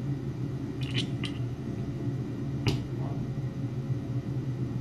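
A few small sharp clicks in the first three seconds as metal digital calipers and a plastic 3D-printed cube are handled, over a steady low hum.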